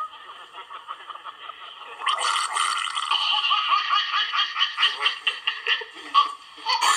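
Laughter, quieter at first and louder from about two seconds in, in quick irregular bursts.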